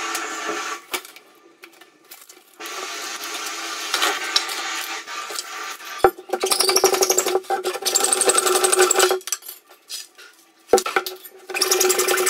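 Hacksaw cutting through a wooden batten in several bouts of fast strokes, with short pauses between them and a sharp knock about six seconds in.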